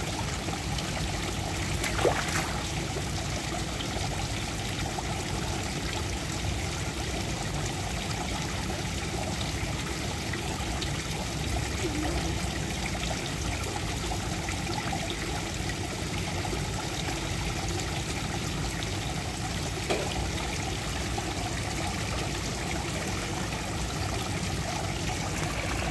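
Steady trickle of running water in a koi pond, with two short knocks, the second much later than the first.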